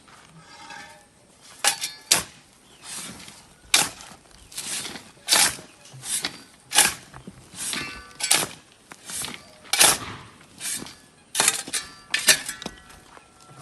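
Rhythmic scraping strokes from hand-tool work, about one stroke every 0.7 seconds, with a few sharp metallic clinks among them.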